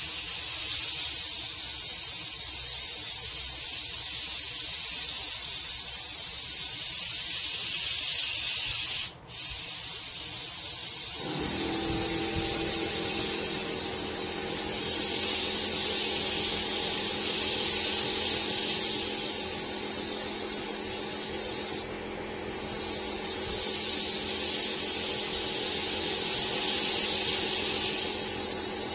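Bridgeport milling machine drilling into a metal block, with a steady loud hiss from the running spindle and cut. About eleven seconds in, a steady low hum of several tones joins. The sound briefly dips twice, about nine and twenty-two seconds in.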